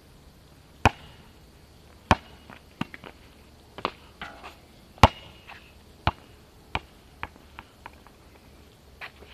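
Basketball bouncing on an asphalt court: loud, sharp bounces about a second apart, then a run of quicker, quieter bounces as the loose ball comes to rest.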